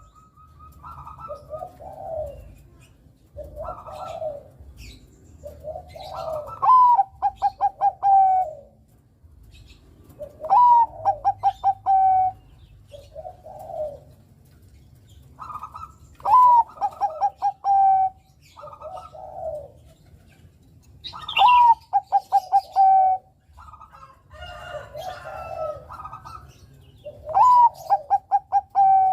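Perkutut Bangkok (zebra dove) singing over and over: each phrase is a quick run of short clipped notes leading into a longer held coo, repeated about every five to six seconds. Lower, shorter coos come in between the phrases.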